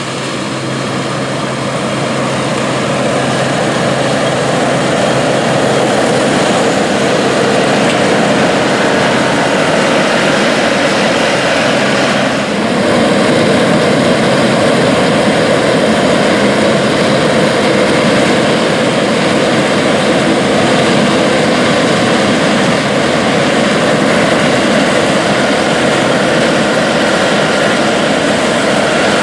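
International Harvester 815 combine with its 144 hp IH V345 gasoline V8 running under load while harvesting corn: a loud, steady drone of engine and threshing machinery. It builds over the first few seconds and has a brief dip about twelve seconds in.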